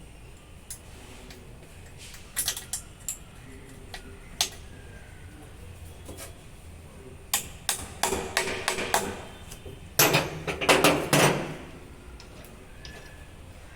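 Clicks and knocks of metal tools and parts being handled during clutch work, with scattered single strikes and then two short clusters of louder clanking and rattling.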